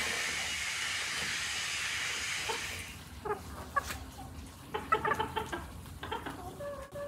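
A steady hiss for about three seconds as a match lights lump charcoal in a metal bucket. Then chickens cluck in short, separate calls, with one longer drawn-out call near the end.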